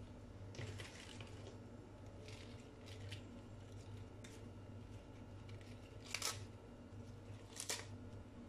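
Crisp lettuce leaves rustling and crackling as they are handled and laid onto a tortilla: a handful of short crinkles, with two louder ones near the end, over a faint steady low hum.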